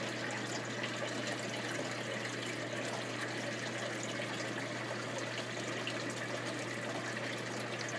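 Steady trickle of circulating water in an aquaponics system, with a low steady hum underneath.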